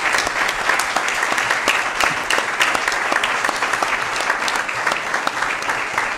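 A roomful of people applauding together, a dense, steady clapping that eases a little near the end.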